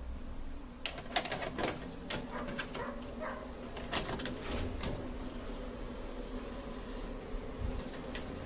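A run of sharp mechanical clicks and light clatter, thickest in the first half, over a steady low electrical hum.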